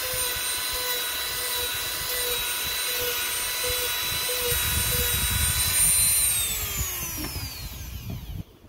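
Handheld rotary tool running with a steady high-pitched whine as it carves a foam sheet, then switched off about six seconds in, its pitch falling as it spins down. The sound cuts off abruptly near the end.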